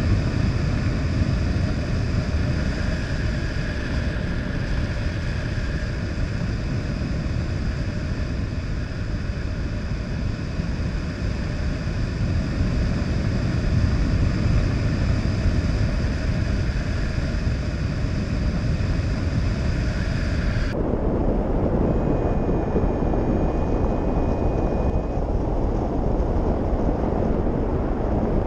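Airflow over a hang glider in flight buffeting the camera microphone: a steady, loud rush of wind with faint steady whistling tones above it. About two-thirds of the way in, the wind noise changes character abruptly.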